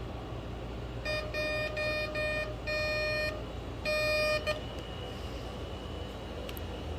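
Metal detector with a homemade 3D-printed search coil sounding its target tone: about six buzzy beeps of one pitch between about one and four and a half seconds in, some short and some longer, as the coil picks up a small piece of gold.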